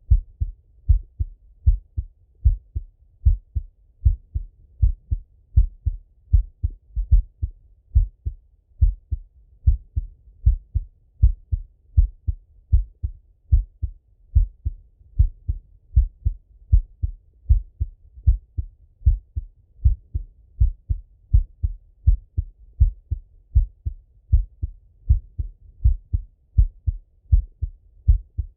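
A man's heartbeat heard through a stethoscope: slow, regular low thumps in lub-dub pairs, repeating steadily.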